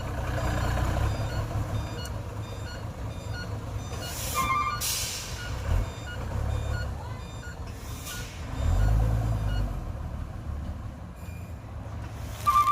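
Diesel dump truck reversing, its backup beeper sounding over the running engine, with the engine swelling at times. A short hiss comes about four seconds in, and a sharp, loud sound near the end.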